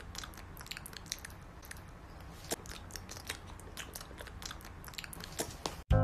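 Pomeranian puppies gnawing on small rings held in their mouths: a quick, irregular run of small clicks and crunches over a low steady hum.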